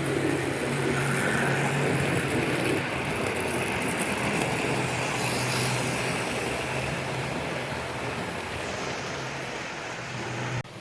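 Model train running on the track: a steady motor hum with wheel and rail noise, easing slightly, then cut off abruptly near the end.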